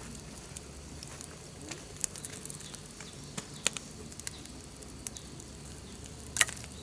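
Wood campfire crackling: scattered, irregular pops and snaps, with a sharper double snap near the end.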